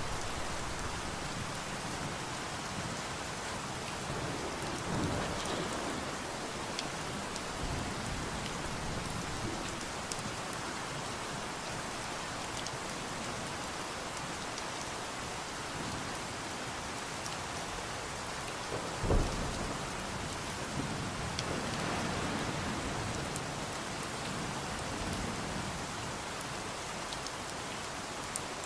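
Steady rain, a continuous hiss of drops, with low rumbles of thunder now and then. About two-thirds of the way through there is one short, loud, low thump.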